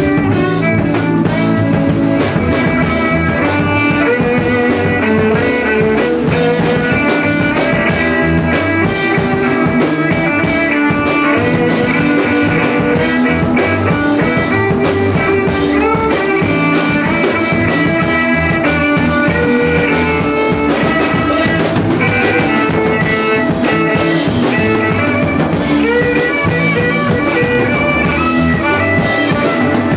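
Live rock jam: electric bass, electric guitar and drum kit playing continuously, with a bowed violin among them.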